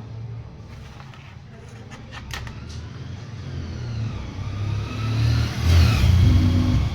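A motor vehicle's engine going by, steadily growing louder with its pitch sliding up and down, loudest near the end.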